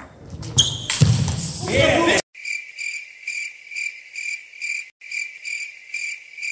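Sharp impacts and hall noise that cut off abruptly about two seconds in. Then comes a clean, even train of short high cricket-like chirps, about two a second, with no hall noise behind them.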